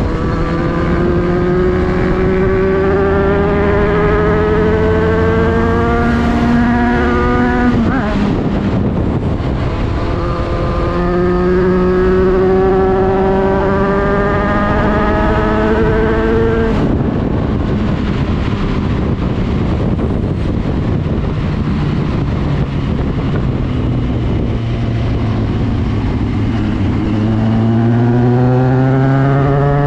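Motorcycle engine under way, its pitch climbing steadily for several seconds and dropping back about eight seconds in, climbing again and dropping near the middle, holding a lower steady note for about ten seconds, then rising again near the end. Wind and road rush run under it.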